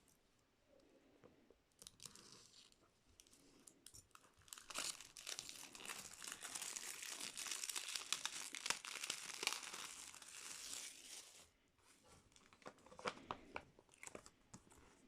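Plastic wrapping being crinkled and torn. A dense crackling runs from about four to eleven seconds in, with scattered clicks and crinkles before and after.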